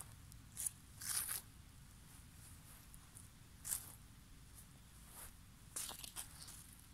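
Scattered short crunches and rustles of grass and dry fallen leaves being pressed, five or six of them spread unevenly, over a faint steady low rumble.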